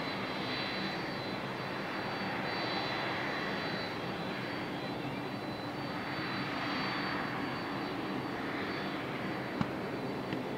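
Boeing 777's twin jet engines running at low power as the airliner rolls out after landing: a steady distant rush with a thin high whine, swelling gently every few seconds. A single short click near the end.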